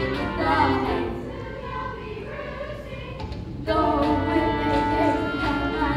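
A stage musical number: singing voices with musical accompaniment. It drops to a quieter passage after about a second and a half and comes back in at full level about three and a half seconds in.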